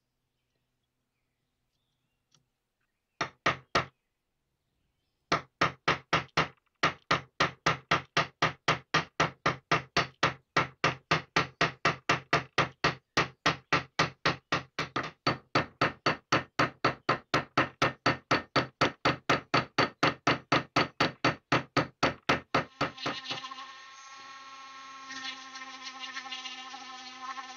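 Small hammer tapping rapidly and evenly, about four strikes a second, peening the metal rivets that hold the new wooden cheeks on a bayonet grip. Near the end a handheld rotary tool with a sanding drum starts and runs with a steady whine.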